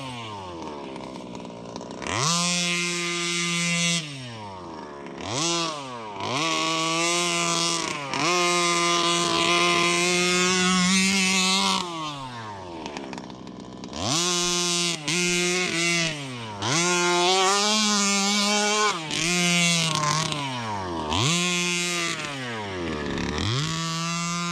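32cc two-stroke petrol engine of a 1/5-scale RC truck being revved in repeated throttle blips, about eight times, each rising quickly to a high held rev and sliding back down toward idle before the next.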